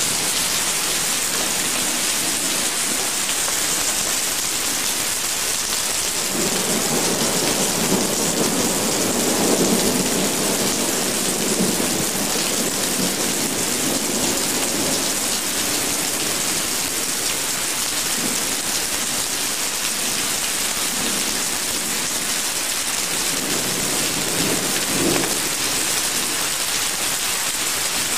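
Heavy rain falling steadily, with a long roll of thunder rumbling from about a quarter of the way in, and a shorter rumble near the end.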